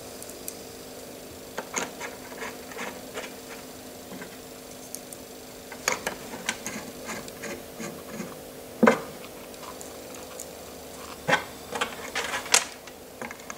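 Scattered clicks and knocks of hand assembly: a screwdriver working the small screws of a metal end plate on the actuator while the part is handled on a wooden workbench. A sharper knock comes about nine seconds in and a few more near the end, over a faint steady hum.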